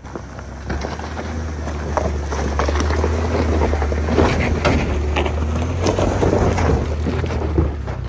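Ford F-150 pickup rolling slowly over a rocky gravel road at close range: the engine runs low and steady while the tyres crunch and pop over loose stones. It gets louder within the first second as the truck comes close.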